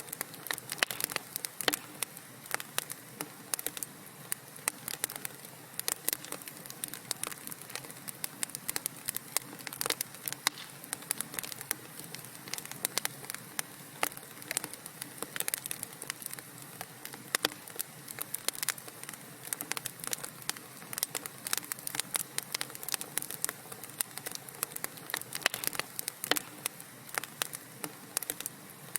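Wood fire crackling in a fireplace: dense, irregular sharp pops and snaps over a soft steady hiss.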